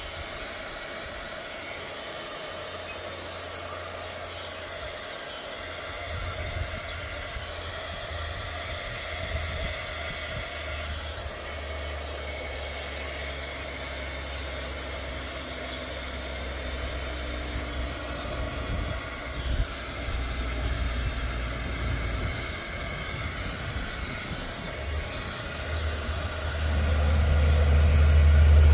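Handheld electric heat gun running with a steady blowing hiss, aimed at a fabric artificial flower to melt its petals. Wind rumbles on the microphone underneath, growing stronger near the end.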